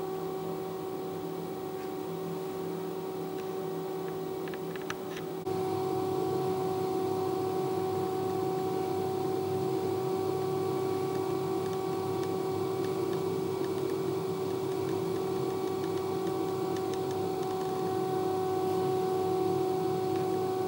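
A steady mechanical hum over a faint hiss, holding one constant pitch throughout, in a small tiled room. It steps up a little louder about five seconds in.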